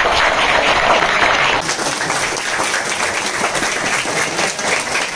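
A crowd applauding, heaviest in the first second and a half, then thinning to scattered clapping. The applause greets the couple's mutual acceptance of the match.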